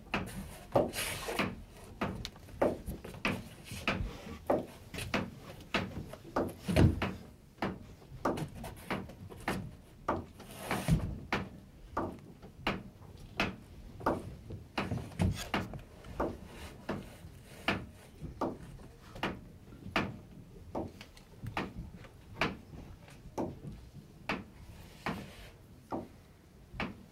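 A slow series of sharp wooden knocks, roughly one a second, with two heavier thuds about 7 and 11 seconds in.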